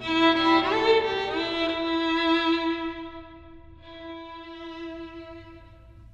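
Violin music playing long held notes, with a slide up into a note about a second in, fading out near the end.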